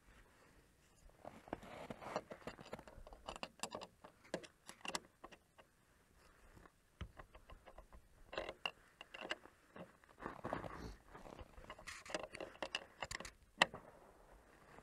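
Steel spanner and gloved hand working nuts and washers on bolts through a timber beam: clusters of light metallic clinks and scrapes as the nuts are turned, with one sharper clink near the end.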